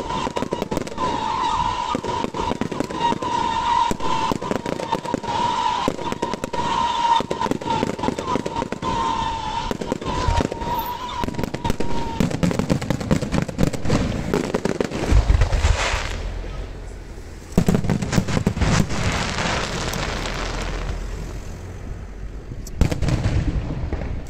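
Aerial fireworks display: rapid bangs and crackling from shells launching and bursting, with a wavering high whistle through the first half. Past the middle come deeper booms, then a sudden loud bang a little later and another near the end.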